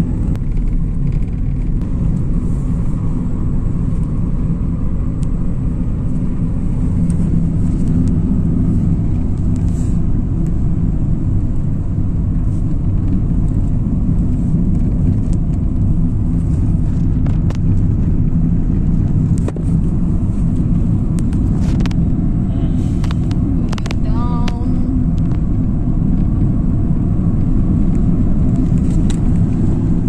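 Steady low rumble of a car driving, engine and road noise heard from inside the cabin, with a few light clicks and a brief higher-pitched sound about three-quarters of the way through.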